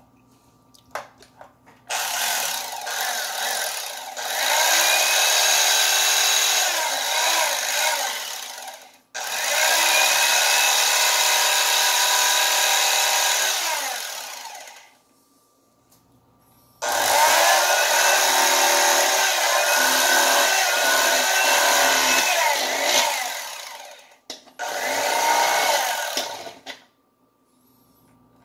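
Electric fillet knife running in four bursts of several seconds each, its buzz sagging and recovering in pitch as the reciprocating blades cut through a catfish fillet.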